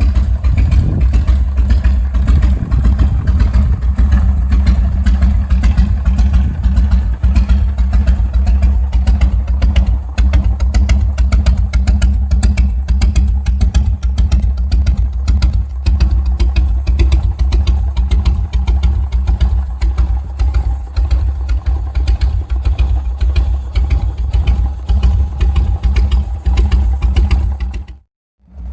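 Harley-Davidson V-twin engine idling steadily with its uneven three-beat "potato" rhythm, with a brief break near the end.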